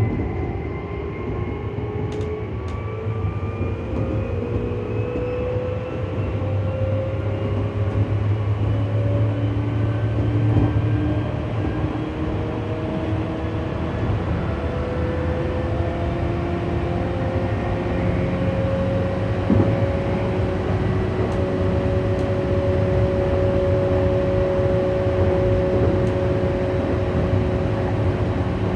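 Tokyu 8500 series electric train under way, its traction motors whining in several tones that climb slowly in pitch as the train gathers speed, over a steady rumble of wheels on the track.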